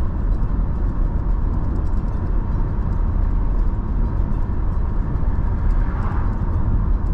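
Steady low rumble of a car driving along the road: engine and tyre noise with no changes.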